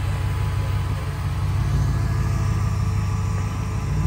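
Off-road buggy's engine running steadily at low revs, a deep even rumble.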